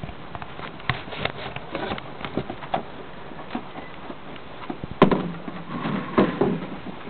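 Irregular light clicks and taps, then a louder burst of knocks and bumps about five seconds in.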